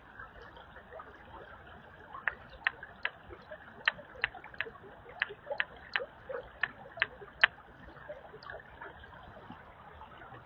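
Shallow creek water trickling steadily, with a quick run of about a dozen sharp clicks in the middle, roughly three a second, the last one the loudest.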